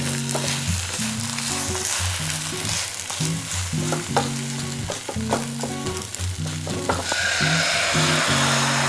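Silicone spatula scraping and tapping against a nonstick frying pan while an egg roll sizzles, over background music. About seven seconds in, beaten egg is poured into the hot pan and a louder, steady sizzle starts.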